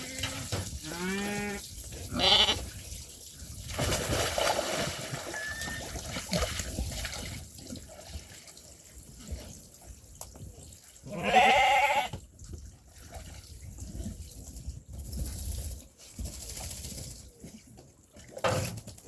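Sheep and lambs bleating: a few calls in the first couple of seconds and one loud bleat past the middle.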